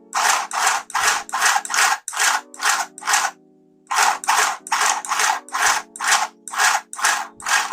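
Background music with a quick, even shaker-like beat over sustained chords, breaking off briefly about three seconds in.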